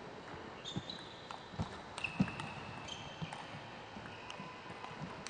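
Table tennis rally: the ball clicking sharply off the rackets and bouncing on the table, a knock every half second or so, with short high squeaks of players' shoes on the court floor.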